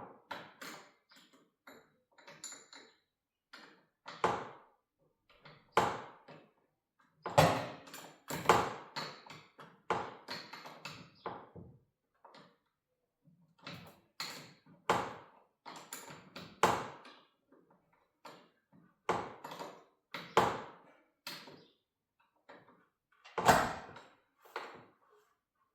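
Wrenches and metal garage door spring hardware clanking and clicking irregularly, sharp metallic knocks with a short ring, a few much louder about seven, eight and twenty-three seconds in.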